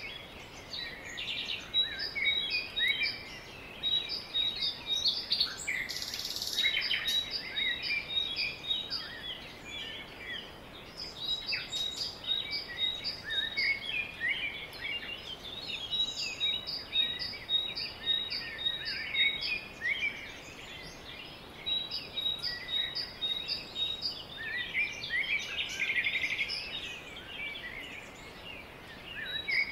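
A chorus of small birds chirping and singing, with many short overlapping calls and one bird repeating a quick high note in long runs.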